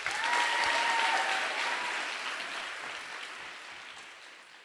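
Audience applauding, loudest about a second in and then gradually fading away.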